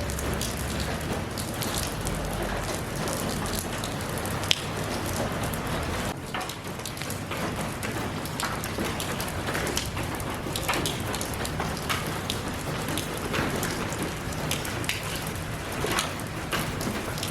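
Steady rainfall, with many separate drops ticking on a hard surface, one sharper, louder drop hit about four and a half seconds in.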